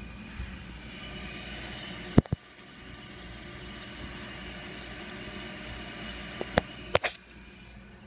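Toilet tank fill valve hissing steadily as water runs into the tank, with a few sharp knocks about two seconds in and a cluster of them near the end; the hiss drops a little after the last knocks.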